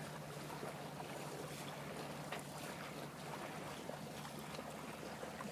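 Sailboat under way at about 4 knots: water swishing steadily along the hull, with wind on the microphone and a steady low hum underneath.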